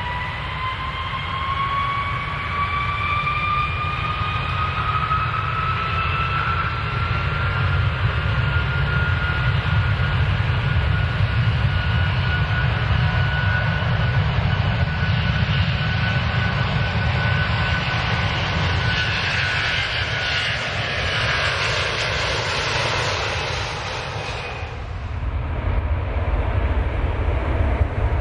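Airplane engines at takeoff power: a whine rising in pitch over the first several seconds and then holding, over a steady low rumble, with a broad rushing noise building to its loudest about three quarters of the way through. Near the end the high rushing drops away suddenly, leaving the low rumble.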